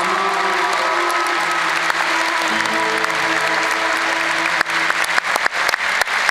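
Live band holding the sustained final notes of a song in a large hall while the audience applauds over it. About four and a half seconds in, the music fades and loud individual claps close by take over.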